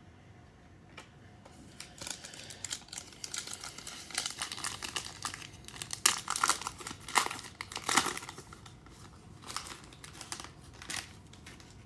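Crinkling plastic wrapper of a trading-card pack being handled and opened, in irregular crackly bursts that are busiest through the middle.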